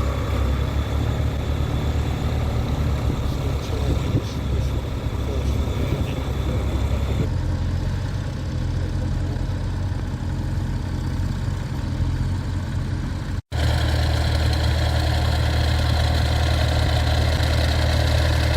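Tractor engine running steadily with a deep, low drone. The sound changes abruptly a little before halfway and drops out for an instant about two-thirds through, where the footage is cut, then the engine drone resumes.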